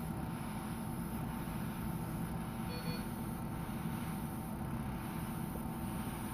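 Steady low mechanical hum and rumble, with a brief faint beep about three seconds in.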